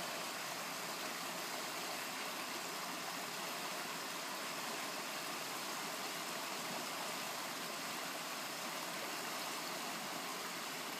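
Steady rush of shallow stream water running over a rocky riffle.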